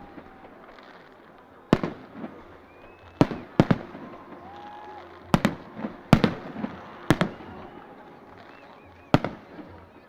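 Fireworks display, with about seven sharp bangs of shells bursting at irregular intervals of roughly one to two seconds, over a steady crackling background.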